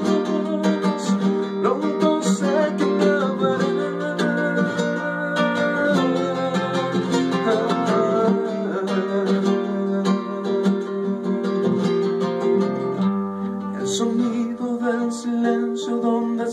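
Music: acoustic guitar playing an instrumental passage of a song.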